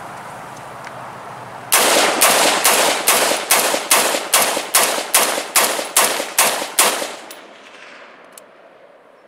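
Inter Ordnance M215 7.5-inch AR-15 pistol in 5.56 NATO firing a quick string of about fifteen shots, roughly three a second, starting a couple of seconds in. The pistol cycles through the string without a malfunction.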